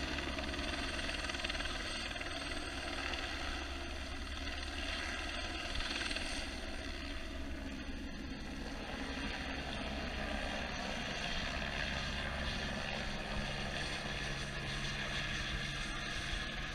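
Helicopter in flight, a steady drone of rotor and engine that eases off slightly over the first few seconds as it moves away.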